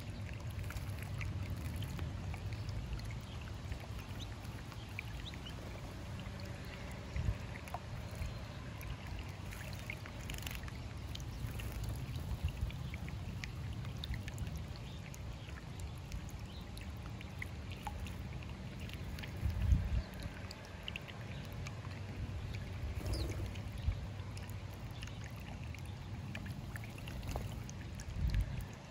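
Small fountain bubbler in a stone birdbath trickling and splashing, with the splashes of a house sparrow bathing in the water. A few brief low thumps break through the steady water sound.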